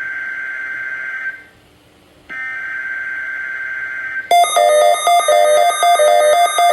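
NOAA Weather Radio SAME (Specific Area Message Encoding) header data bursts: two bursts of about two seconds each, a second apart, sent as the tone-alert part of the Required Weekly Test. A little over four seconds in, a much louder alarm tone starts, the 1050 Hz warning tone that would activate weather radio receivers, with a pulsing buzz under it.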